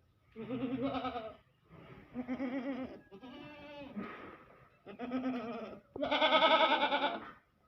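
Sojat goat bleating about five times in a row, each call a wavering, quavering bleat of about a second; the last one is the loudest.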